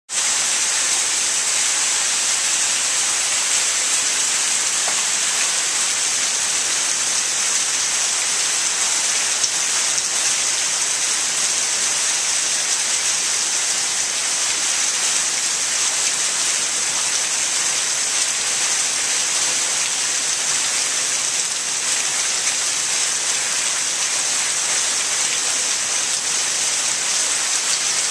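Heavy downpour: a steady hiss of rain falling on pavement, a driveway and a lawn.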